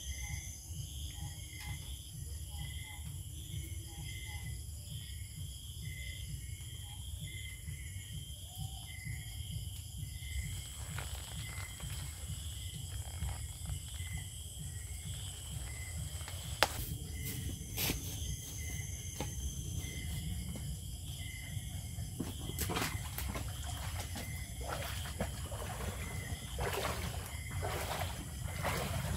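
Rural outdoor ambience: a steady insect drone, a short chirp repeating about once a second, and a constant low rumble. From about ten seconds in come scattered rustles and snaps of leaves and stalks as banana plants are handled, with one sharp snap partway through.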